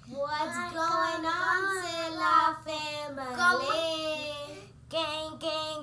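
A young girl singing a short tune in a high voice, with held and gliding notes, breaking off briefly near the end before two short sung phrases.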